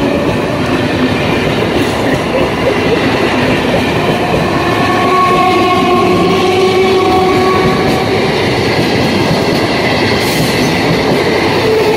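Indian Railways EMU local train running past close by: steady loud rumble of its wheels on the rails and running gear, with some faint held tones partway through.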